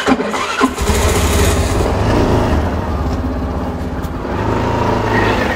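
Suzuki Burgman Street scooter's single-cylinder 125 cc engine running and pulling away at low speed, with a low steady rumble that picks up about a second in.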